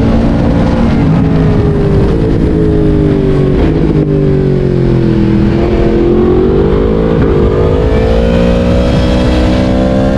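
Yamaha MT-10's crossplane inline-four running through a LeoVince decat exhaust: the engine note falls as the bike slows over the first half, then climbs steadily as it accelerates again.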